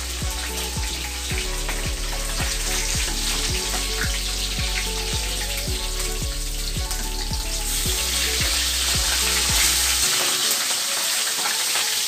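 Dried milkfish (daing na bangus) sizzling as it fries in hot oil in a steel wok, the sizzle growing louder in the second half.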